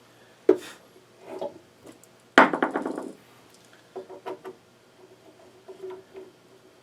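Small metal parts and hand tools being handled: a sharp knock, a louder scraping stroke about two and a half seconds in, then a few light clicks.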